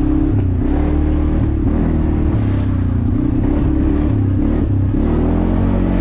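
ATV engine running under throttle during an off-road ride, its pitch wavering up and down as the speed changes.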